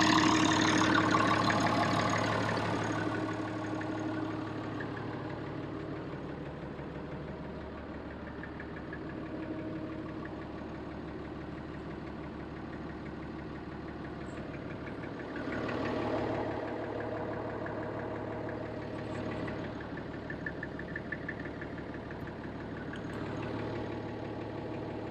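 International Harvester 1566's turbocharged six-cylinder diesel engine idling steadily with diesel clatter, loudest at first close beside the engine and settling lower as it is heard from the cab. A brief swell in the engine sound comes about sixteen seconds in.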